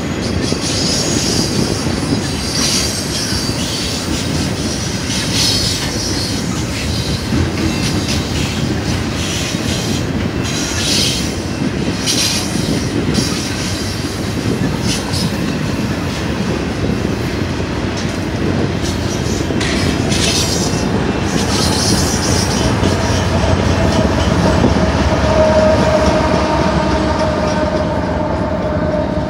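A BNSF double-stack intermodal freight train rolls past with a steady rumble and clatter, and its wheels squeal in short high bursts several times. Near the end its two rear distributed-power locomotives come by close, adding a steady engine tone that grows louder.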